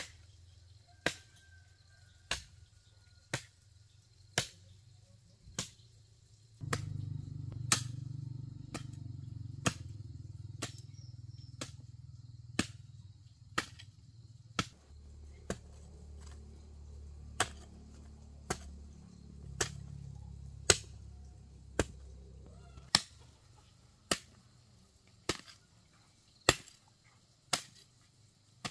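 A metal hoe striking hard, dry soil over and over, about one sharp chop a second, breaking up the ground into clods. A low steady rumble runs underneath through the middle part.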